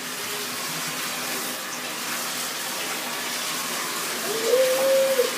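Bathtub filling from the tap, water running steadily into the tub. Near the end a voice holds one short high note for about a second.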